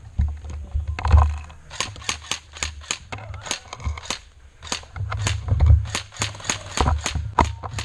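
Airsoft gun firing a rapid string of sharp cracks, about five or six a second after the first second or so. A low rumble runs underneath.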